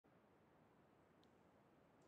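Near silence: faint steady room hiss with one tiny tick about a second in.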